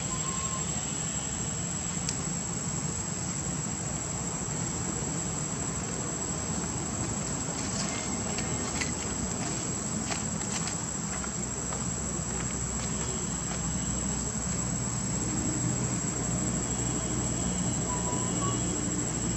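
Insects trilling steadily at one high pitch over a low, steady rumble. A couple of faint, brief squeaks come at the start and near the end.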